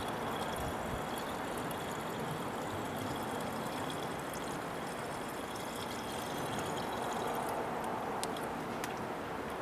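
Engine coolant pouring in a steady stream from a plastic jug into a pickup truck's coolant overflow tank as it fills.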